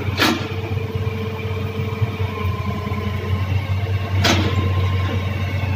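Truck engine idling with a steady low hum, broken by two sharp knocks, one just after the start and one about four seconds in.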